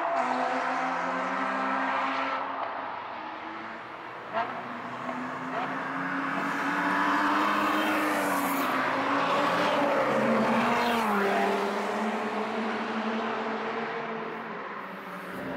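Several track-day cars driving down the circuit straight one after another, their engines revving and changing pitch as they accelerate and shift gear, with more than one engine note often heard at once. A single short click sounds about four seconds in.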